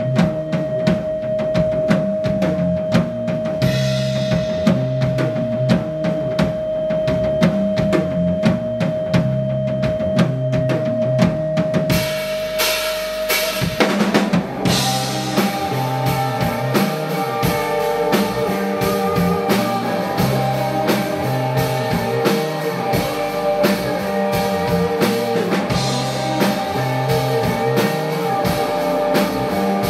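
A live band playing an instrumental rock track: drum kit and a repeating bass line drive it throughout. A single high note is held over them until about halfway through, and then the music shifts into a fuller section with more layers.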